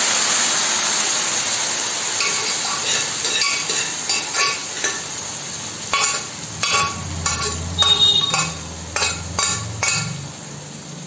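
Boiled cluster beans sizzling in hot mustard oil in an iron kadhai just after being added to the tadka. The sizzle is loudest at first and slowly dies down. From about two seconds in there are repeated short metal clinks and scrapes against the pan, thickest in the second half.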